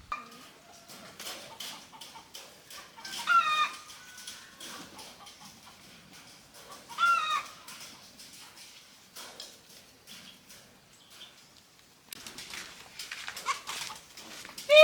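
Chickens clucking, with two louder short calls about three and seven seconds in, over light clicks and rustling.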